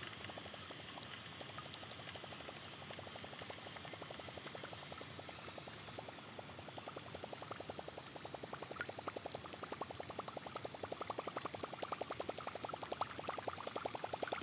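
Berkley Bucktooth Choppo topwater lure being reeled across calm water, its spinning tail churning the surface with a rapid, even plopping gurgle. The gurgle starts about six seconds in and grows louder as the lure comes closer.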